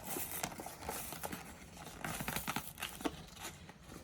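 Plastic toy packaging crinkling and rustling, with irregular clicks and snips, as it is cut open with scissors.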